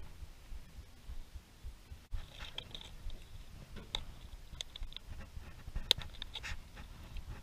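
Scattered small clicks and crinkles of a plastic bottle being handled in gloved hands, the sharpest click about six seconds in.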